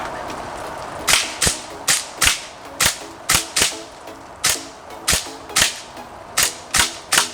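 Airsoft gun firing single shots in quick succession, about a dozen sharp cracks spaced roughly a third to half a second apart, starting about a second in. Faint background music runs underneath.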